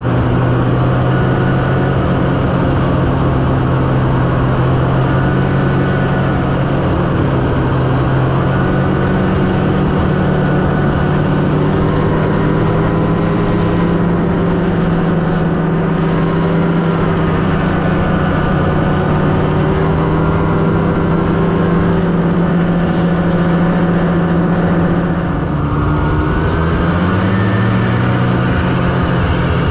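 Snowmobile engine running steadily while riding a snowy trail, its pitch wavering slightly with the throttle. Near the end the engine eases off briefly, then its pitch climbs again as it speeds back up.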